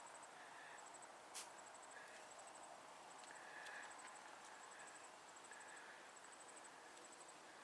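Near silence with faint high insect chirping: short trills of a few pulses repeating every second or so. A single sharp click comes about one and a half seconds in.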